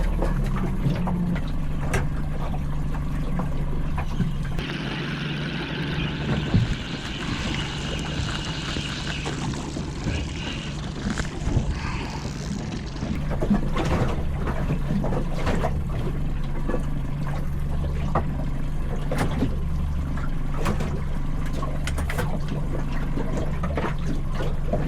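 Small boat in choppy water: short knocks and slaps of waves on the hull over a steady low hum, with a rushing hiss for a few seconds early on.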